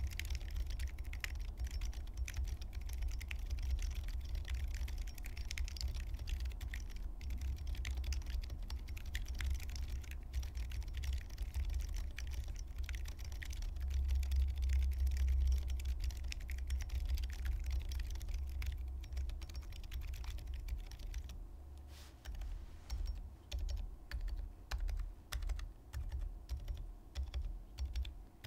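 Typing on a Neo Ergo mechanical keyboard with Durock Silent Shrimp silent linear switches, an aluminium plate and a gasket mount: a dense, continuous stream of keystrokes with low thuds beneath. Near the end the typing breaks into separate, evenly spaced bursts, roughly one and a half to two a second.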